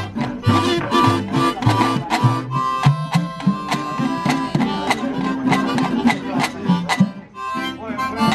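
Live acoustic folk music: a guitar picked in a steady rhythm with alternating bass notes, with a harmonica playing held notes over it.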